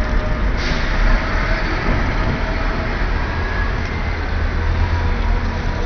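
Steady low rumble of a large vehicle running, with a hiss of air that starts suddenly about half a second in.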